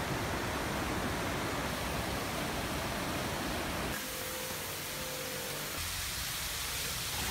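Steady rushing noise of a small waterfall pouring into a pond, mixed with falling rain. The noise shifts a little about four seconds in and again near six seconds, as the view changes.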